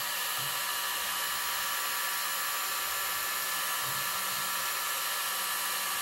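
Electric heat gun running steadily, a constant whir of its fan and heater blowing hot air.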